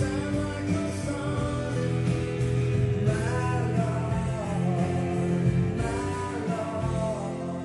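A vinyl record playing a song with singing and guitar, played on a Victor TT-81 direct-drive turntable with an Ortofon 2M Red cartridge.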